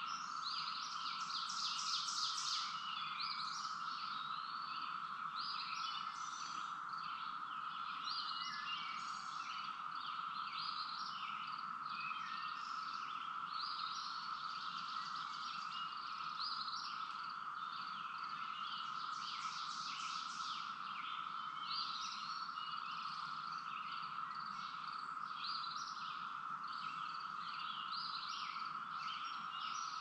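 Chorus of singing insects, which the uploader calls cicadas: many short, repeated chirping pulses over a steady, even hum.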